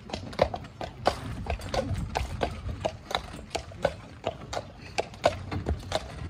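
A harnessed horse's hooves clip-clopping at a walk on concrete as it pulls a cart, about three even beats a second.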